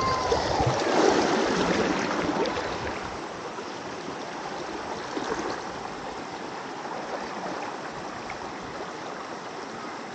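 River water flowing over rocks: a steady rush of water, louder for the first two or three seconds.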